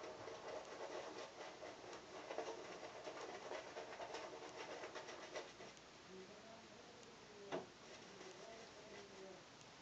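Shaving brush swirling lather over stubbled skin: faint, rapid scratchy strokes that thin out after about five and a half seconds, with one sharp click about seven and a half seconds in.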